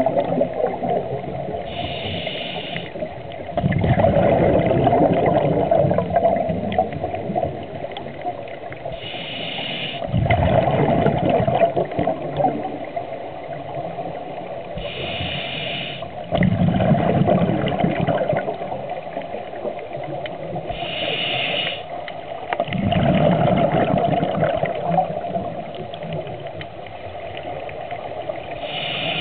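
Scuba diver breathing through a regulator underwater: a short hiss of inhaled air about every six seconds, each followed by a few seconds of bubbling as the exhaled air streams out.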